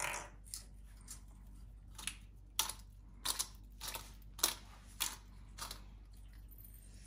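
Hand pepper mill grinding pepper: a run of short grinding strokes, roughly two a second, one for each twist of the mill.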